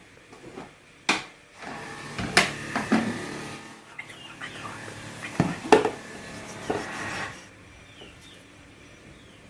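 Knocks and clatter of kitchen things being handled: a ceramic bowl set down on a concrete floor and the plastic lid of a milk-formula tin opened, with rustling and scraping between. It stops about seven seconds in.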